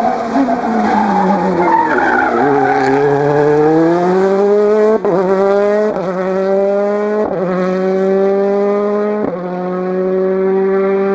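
Hyundai i20 WRC rally car's 1.6-litre turbocharged four-cylinder engine, its note falling as the car slows for a bend, then climbing hard through the gears with four quick upshifts.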